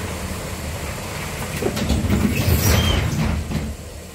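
LVS-86K tram rattling and clanking as it sets off from a stop, with a louder stretch of clanks about two seconds long in the middle and a brief high squeal, before settling back to a quieter running hum near the end.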